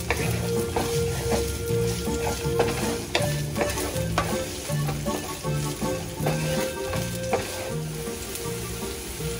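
Chopped onion sautéing in hot oil in a frying pan, sizzling steadily while a wooden spatula stirs it, scraping and tapping against the pan at irregular moments.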